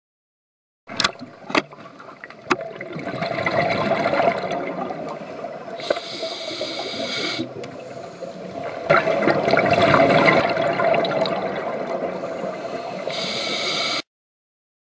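Underwater sound of scuba breathing through a regulator: a hiss on each inhalation and a gurgling rush of exhaled bubbles, swelling and fading twice. A few sharp clicks come about a second in.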